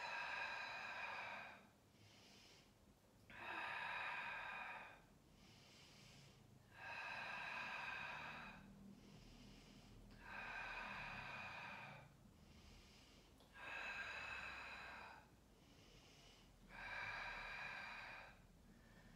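A woman breathing audibly and slowly in a steady rhythm: six long breaths about every three seconds, with quiet between them. The breaths are paced to alternating leg movements in a Pilates scissors exercise.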